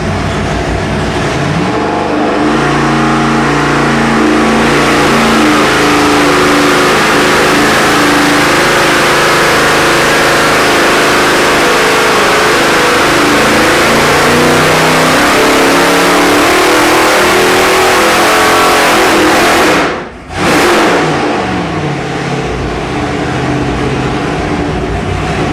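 Roots-supercharged 572 cubic-inch big-block Chevy V8 making a dyno pull under load, its revs climbing steadily for well over fifteen seconds. About twenty seconds in the throttle is shut suddenly and the revs fall back toward idle.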